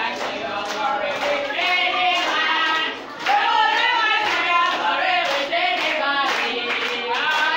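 A large group of young children singing together and clapping in a steady rhythm, with a short break in the singing about three seconds in.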